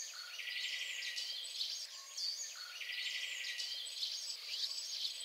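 Outdoor ambience of birds chirping and calling, with a rapid buzzy trill that comes in twice, over a faint steady hiss.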